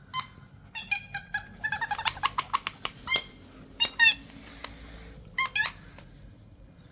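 Motion-activated pet sound ball going off as it rolls: several bursts of high, bending electronic squeaks and giggle sounds, with a quick run of chirps in the first few seconds and a last pair about five and a half seconds in.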